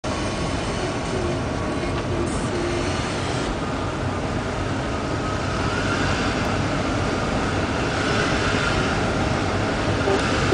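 Steady low rumble of vehicle noise, with no breaks or sharp sounds.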